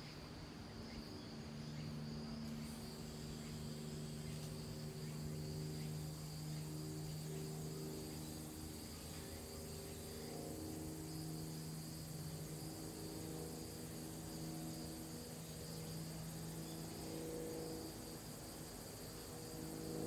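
Insects calling in a steady high buzz, with a second, higher insect hiss joining about two seconds in. Underneath runs a low drone of several tones whose pitch steps around.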